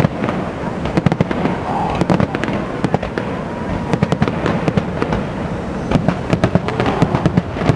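Fireworks display: aerial shells bursting in a dense, irregular string of bangs and crackles, several a second.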